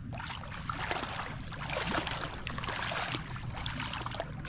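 Pond water sloshing and trickling, with many small splashing ticks over a steady low rumble.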